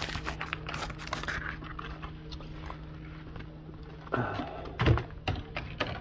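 Plastic bubble-wrap packaging rustling and crinkling in the hands as it is handled and opened, in irregular crackles, with a steady low hum underneath.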